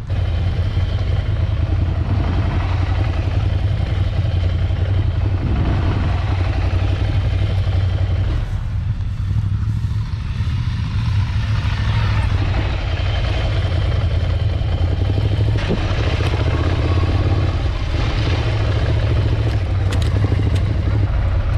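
Ducati Scrambler Desert Sled's air-cooled 803 cc L-twin engine running at low revs, a steady low engine note that dips slightly and picks up again, as the bike is ridden slowly through a slalom.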